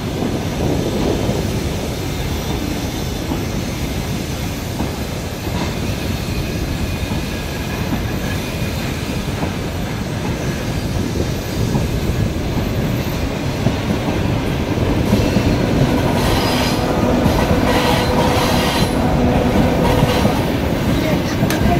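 ED4M electric multiple unit approaching and passing close by, a steady rumble of wheels on rail that grows louder in the last several seconds, with clicks of wheels over rail joints and a steady tone.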